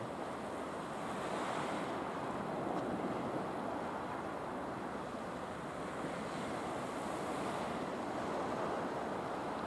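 Sea surf washing over rocky shore reefs, a steady rush with gentle swells, with wind buffeting the microphone.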